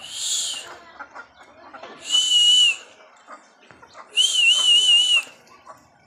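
A high whistled call sounds three times, about two seconds apart, each under a second long; the third is the longest and wavers up and down in pitch.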